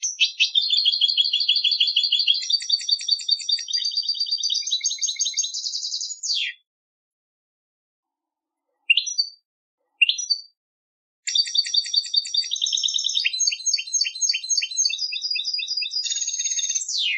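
European goldfinch singing: a long phrase of rapid high trills and twitters, a pause broken by two short rising call notes, then a second long phrase of twittering song.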